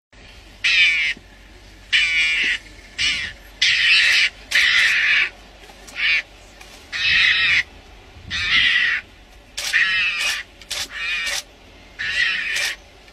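A mongoose giving a series of about a dozen short, high-pitched calls, each under a second, with brief pauses between them. These are the defensive threat calls of a mongoose cornered by lions.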